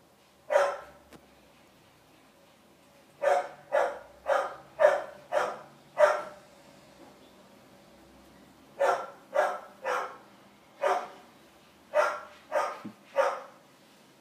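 A dog barking in short sharp barks: one bark, then a run of six about half a second apart, then further barks in twos and threes.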